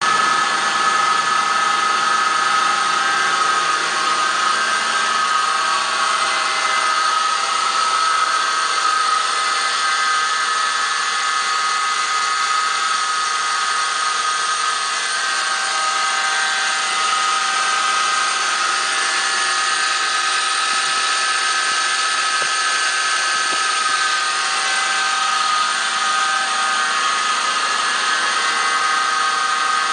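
2003 Toyota 4Runner's 1GR 4.0-litre V6 engine running steadily under the hood, with a constant high-pitched whine over the engine noise.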